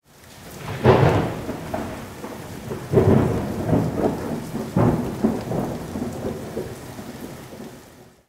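Thunderstorm sound effect: three loud thunderclaps, about two seconds apart, each with a rumbling tail, over a steady hiss of rain. It fades in at the start and fades out near the end.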